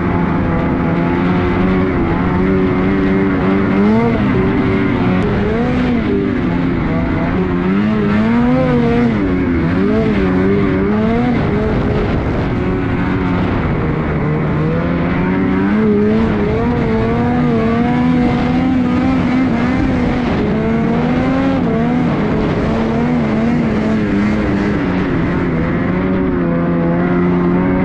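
Snowmobile engine running hard while ridden through deep snow, its pitch rising and falling again and again with the throttle, heard up close from the rider's seat.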